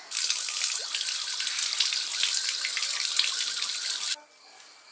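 Water running from a tap and splashing over hands washing a small object under the stream, a steady splashing hiss that stops abruptly about four seconds in.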